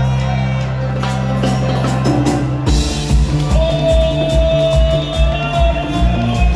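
Cuarteto band playing live. A sustained low chord gives way, about a third of the way in, to a steady beat of bass thumps about twice a second, with a long held high note above it.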